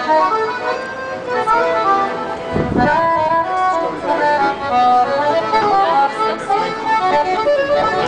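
Piano accordion played by a street busker, a continuous melody of changing notes.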